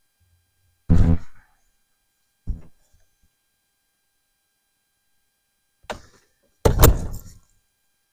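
A person's voice in a few short bursts with silence between: one about a second in, a brief one soon after, and two close together near the end.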